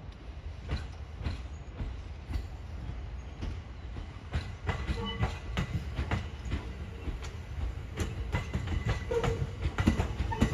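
A train running past, its wheels clacking over the rail joints over a low rumble. The clacks come closer together and louder about halfway through.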